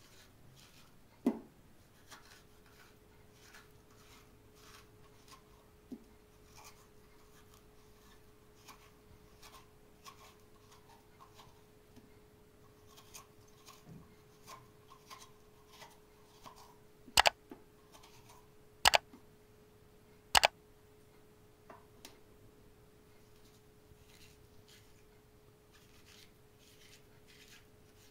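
Food-preparation handling sounds: light scattered clicking and scraping, with three sharp knocks a second or two apart about two-thirds of the way through, over a faint steady hum.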